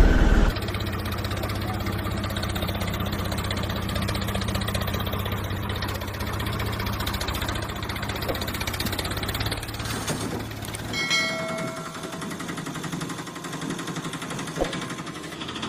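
Tractor engine sound running steadily with a fast knocking beat. About eleven seconds in, the deep part drops out and a lighter engine sound with a few ringing tones follows.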